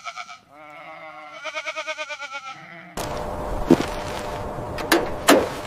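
Goat bleating in long quavering calls that cut off abruptly about three seconds in. A steady mechanical hum follows, with a few sharp knocks.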